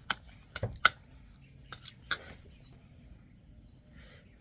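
A few sharp clicks and knocks in the first half, the loudest just under a second in, over a steady high-pitched hum.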